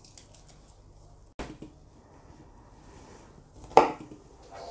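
Chef's knife knocking on a plastic cutting board while cutting garlic cloves: a sharp knock about a second and a half in, a louder one near four seconds, then quick chopping strokes at the end.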